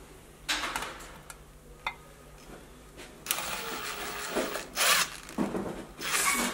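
Cordless impact driver running in several short bursts, driving small screws into a sheet-metal cover plate on an aluminium Subaru engine block. The longest burst comes about three seconds in.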